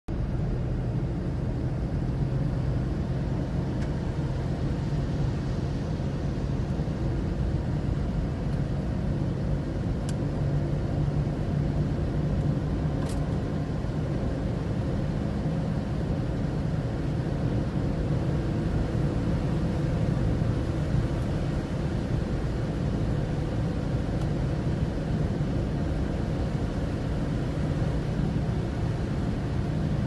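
Steady low rumble of a car's engine and tyres, heard from inside the cabin as it drives along a wet road.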